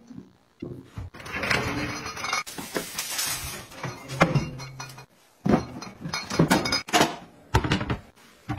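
Household items being handled: a run of clicks, light clinks and rustles as hangers, plastic cart drawers and a sink rack are moved and set in place.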